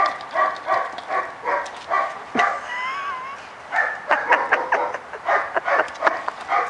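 Dog barking in quick repeated short barks, with a brief wavering whine near the middle before the barking picks up again.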